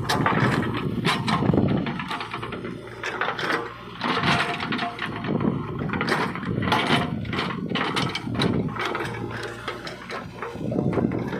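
JCB 3DX backhoe loader working: its diesel engine running under repeated knocking and scraping as the bucket works soil and stones.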